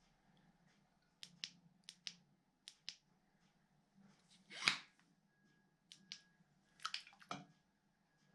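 Small splashes and sharp clicks of water and metal as an aluminium flashlight is moved about underwater in a water-filled washbasin. There are several quick pairs of clicks, one louder slosh about halfway through, and a few more clicks near the end.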